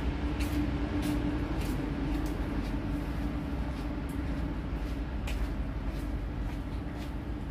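Steady low hum of a container ship's machinery, with one steady tone in it. Faint footsteps on the steel deck tick through it about every half second to second.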